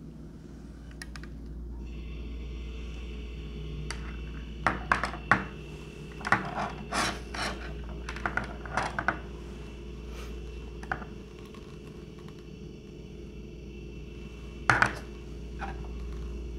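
Sunglasses being handled on a laminate countertop: clicks and taps from the metal frames and their hinged temple arms being opened, folded and set down, in a busy cluster about five to nine seconds in and a sharp double click near the end.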